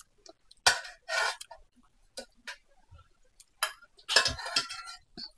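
Metal spoon scraping and clinking against a cooking pan, scooping up the leftover curry gravy. It comes in several short strokes, with a sharp clink a little under a second in and a busier run of scrapes near the end.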